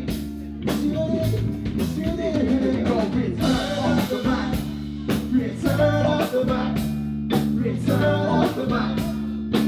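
A live band playing with singing over a drum kit keeping a steady beat and guitar.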